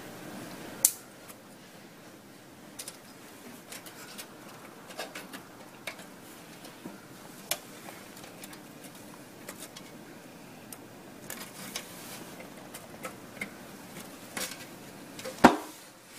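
Small clicks and taps of hands handling an opened car radio unit's metal chassis, wires and ribbon cables, scattered irregularly, with two louder knocks, one about a second in and one near the end.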